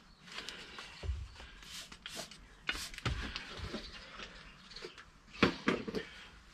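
Scattered light knocks, clicks and scuffs from handling tools and parts, with a few brief hissing or rubbing noises; the loudest knocks come about five and a half seconds in.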